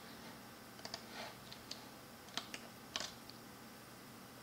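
Irregular light clicks from a computer mouse and keyboard, about ten in a few seconds, with faint room hiss between them.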